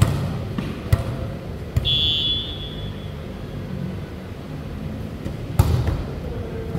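Volleyball play on a hard indoor court: a ball bouncing on the floor about three times, a short high-pitched squeal about two seconds in, and a louder smack of a hit near the end.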